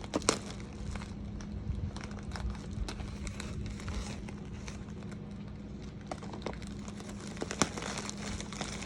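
Packaging crinkling and rustling as a parcel is unpacked, with scattered sharp clicks and a couple of louder snaps, over a steady low hum.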